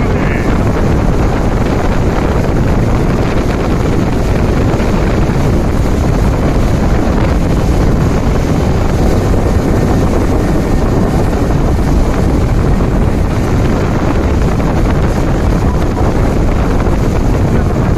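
Wind buffeting the microphone on a center console boat running at speed, over the drone of its engine and water rushing and splashing along the hull. A steady, loud, unbroken noise.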